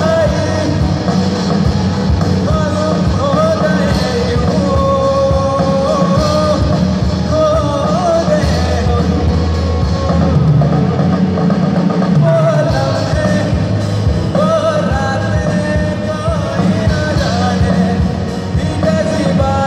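Rock band playing live over a PA, a singer's voice carrying the melody over a steady drum beat and bass.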